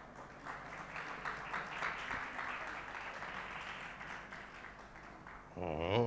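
Audience applauding, a dense patter of clapping that fades over about five seconds. Near the end comes a short, loud, wavering pitched sound.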